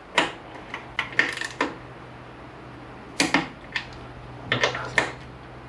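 Click-type torque wrench on a motorcycle front brake caliper mounting bolt: a series of sharp, irregular metallic clicks as the ratchet works and the bolt is brought up to 23 Nm.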